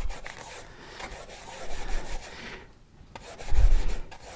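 Paintbrush bristles scrubbing and swishing thick acrylic paint around the well of a plastic palette, mixing a colour. The scrubbing pauses briefly, then a louder low thump comes near the end.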